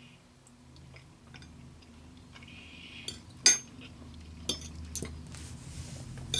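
Cutlery clinking and tapping against a plate a few times while eating, the sharpest clink about three and a half seconds in, over a faint steady low hum.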